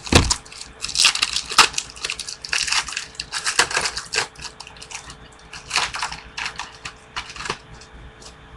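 Crinkling and crackling as a foil baseball card pack is torn open and the cards are handled, in quick irregular clusters that die down near the end.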